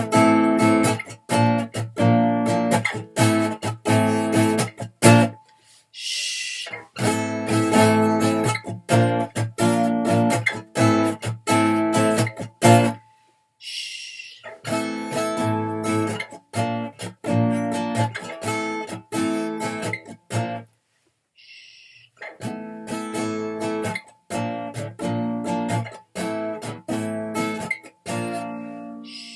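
Acoustic guitar strummed in a steady rhythm, stopping for a second or two three times, with a short hiss heard in each pause.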